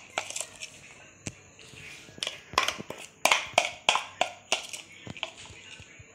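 Light, irregular clicks and taps against a metal mixing bowl as chopped onion is added to the ground moong and gram-flour batter. They come singly at first, then in a quick run of about a dozen from about two seconds in.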